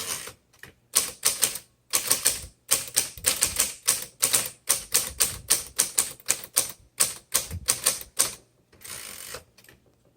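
Smith Corona Electra 120 electric typewriter being typed on: a fast, even run of key strikes, about four a second, with a low steady hum underneath. A longer, noisier sound comes near the end.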